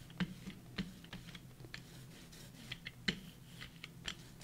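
Scattered light clicks and taps at an irregular pace, over a faint steady low hum.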